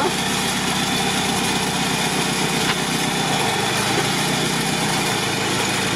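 Off-road UAZ 4x4's engine idling steadily.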